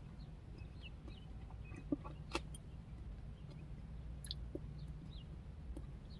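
Faint scattered clicks and crackles of popping candy chocolate being chewed, over a steady low hum, with a few short high chirps.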